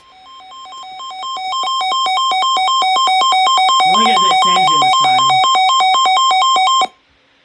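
Electronic emergency-alert attention tone switching rapidly between a higher and a lower pitch, announcing a severe thunderstorm warning. It fades in over the first two seconds, holds loud, and cuts off suddenly near the end. Midway a lower sound steps down in pitch three times over it.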